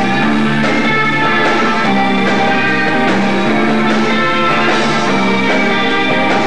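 Rock band playing live, electric guitar to the fore, the notes held and changing every half second or so.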